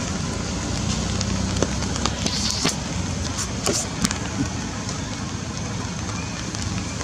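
Steady rain falling, an even hiss with a low rumble underneath. A few sharp taps come around the middle.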